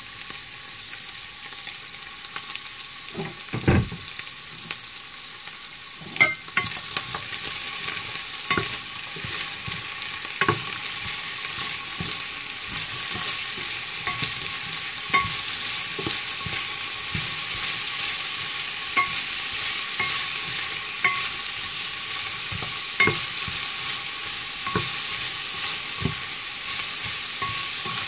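Turkey pieces and sliced carrots sizzling in oil in a stainless steel pan, the sizzle growing louder over the first several seconds. A spatula knocks and scrapes against the ringing pan every second or two as the food is stirred, with one heavier knock a few seconds in.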